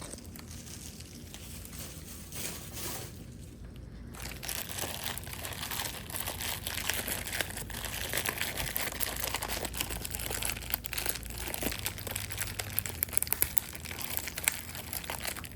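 Packing wrap and tape crinkling and crackling as they are pulled and torn off wrapped selenite bowls; the rustling is sparse at first and grows busier about four seconds in.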